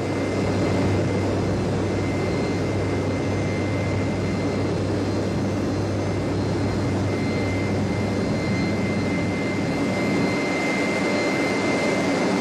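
General Electric J79 turbojet running steadily on a test stand: an even roar with a steady high compressor whine over it.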